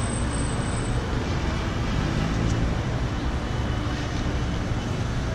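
Steady street traffic noise: passing cars and engines make a constant low rumble.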